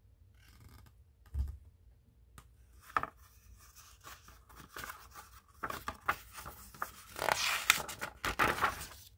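Paper pages of a picture book being handled and turned: a low thump about a second and a half in, a click, then a run of crisp paper rustles and slides, loudest near the end.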